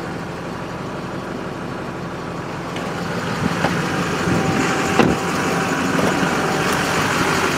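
Chevrolet Duramax LMM 6.6-litre V8 turbo-diesel idling steadily, getting a little louder about three seconds in; a single door clunk about five seconds in.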